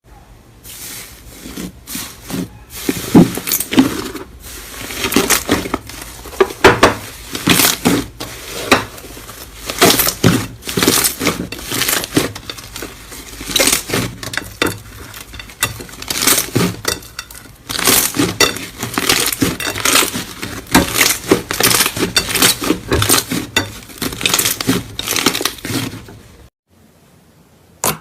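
Slime being worked by hand: a dense, irregular run of crackling clicks and sticky pops that stops about a second and a half before the end.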